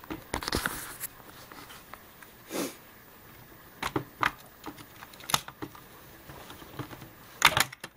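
Scattered sharp plastic clicks and clacks as the two halves of a Syma X8 Pro drone's plastic shell are pried apart, held together by locating dowels, with a small part falling out that is probably one of the dowels. The loudest clacks come near the end.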